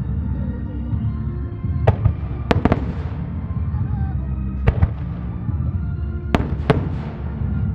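Aerial firework shells bursting in a starmine display: about eight sharp cracks in four clusters, each trailing off in echo, with music playing underneath.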